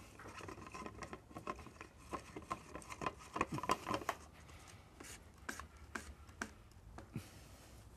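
Clear plastic pre-filter housing of an Aquasana whole-house water filter being screwed back onto its head by hand: a run of small, irregular clicks and scrapes from the threads and the handled bowl, densest around the middle.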